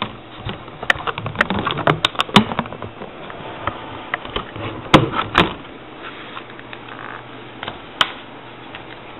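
Clicks and snaps of a plastic RAM blister pack and the memory modules being handled: a quick run of small clicks in the first couple of seconds, two louder snaps about five seconds in and another near the end.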